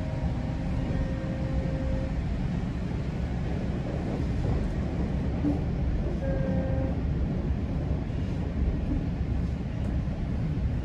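GO Transit bilevel commuter train running at speed, heard from inside the coach: a steady low rumble of wheels on the track. A faint steady tone rises out of the rumble in the first two seconds and again briefly about six seconds in.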